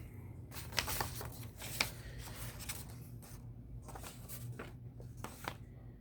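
Light rustling and tapping of paper and card packaging being handled, with a couple of sharper ticks about one and two seconds in.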